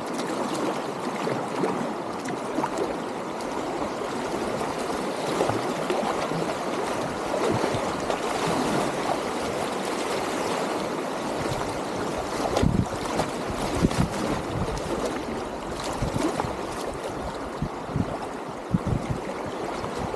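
Shallow river rapids rushing and gurgling over stones around a packraft, a steady sound with occasional low thumps from about halfway through.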